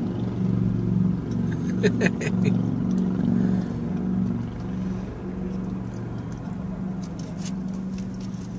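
A vehicle engine idling with a steady low hum, with a few sharp clicks about two seconds in.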